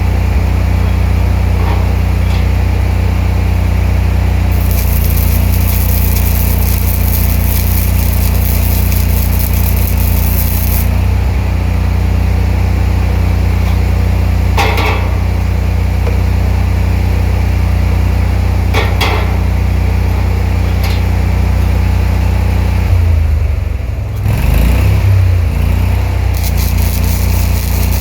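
Ranger engine-driven welder-generator engine running steadily. Over it comes the hiss and crackle of open-arc flux-core welding from a READYWELDER spool gun, from about five to eleven seconds in and again near the end. A few short sharp clicks fall in between, and the engine note dips briefly about three-quarters of the way through.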